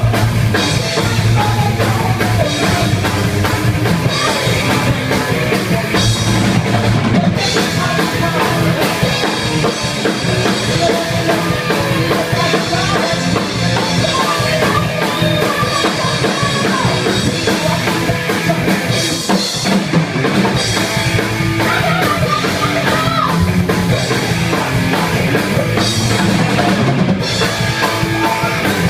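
Loud rock music with a driving drum kit and wavering melodic lines.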